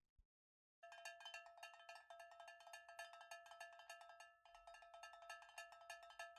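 Quiet, rapid run of metallic bell strikes at one fixed set of ringing pitches, many strikes a second. It starts just under a second in and breaks off briefly about four and a half seconds in before carrying on.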